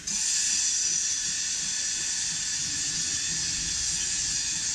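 Steam locomotive letting off steam: a steady, loud hiss that cuts in suddenly and holds.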